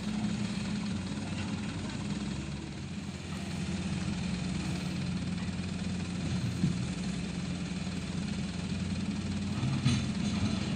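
Diesel engines of an excavator and a mud-stuck dump truck running at a steady low hum, with no revving.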